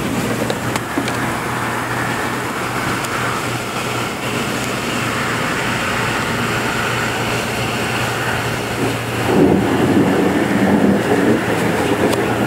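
Distant thunder of an approaching thunderstorm rumbling over a steady rushing hiss of storm wind; the rumble swells and grows louder about nine seconds in.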